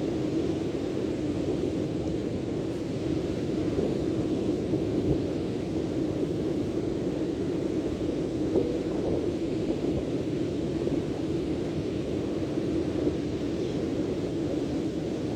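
Steady rushing noise of wind and sea at the shore, even and unbroken, with no separate waves standing out.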